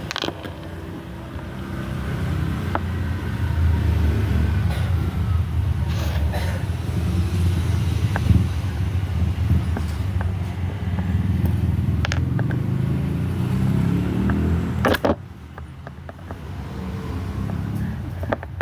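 Kemei KM-1986 electric hair clipper running with a steady buzz, with a few clicks; the buzz drops sharply about fifteen seconds in. The clipper is hard to start and sometimes stalls, a fault the owner traces to hair packed inside its switch.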